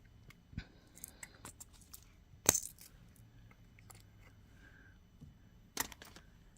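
Light metallic clicks and clinks from jewelry-making: pliers and a small metal jump ring tapping on a hard work surface. Scattered small ticks, the sharpest clink about two and a half seconds in and another pair near the end.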